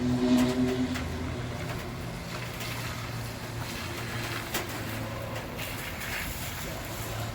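Steady low hum of street traffic, with a brief loud pitched call in the first second.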